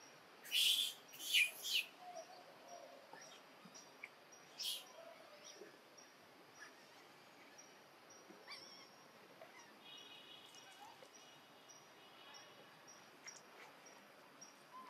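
Short, harsh high-pitched animal calls, two close together at the start and one more about five seconds in, over a faint, regular chirping outdoors.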